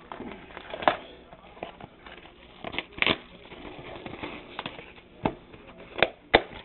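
A box of trading cards being handled and opened: a scattering of sharp clicks and knocks with some crinkling of packaging between them.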